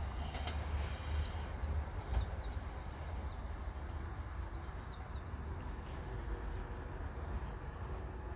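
Low rumble of an Amagi Railway diesel railcar moving away, strongest in the first couple of seconds and then easing off, with small birds chirping in short, irregular calls.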